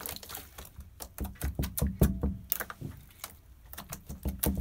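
Sticky glitter slime being handled and pulled by hand, giving many quick irregular clicks and wet pops.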